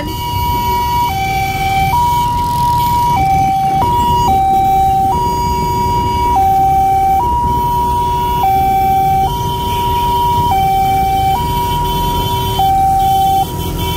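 Two-tone hi-lo siren on a motorcycle sidecar ambulance, switching back and forth between a higher and a lower pitch about once a second, over the motorcycle's engine and traffic rumble.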